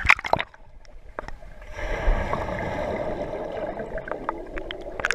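Water splashing and gurgling, starting about two seconds in and running steadily with small ticks, after a few sharp knocks at the start.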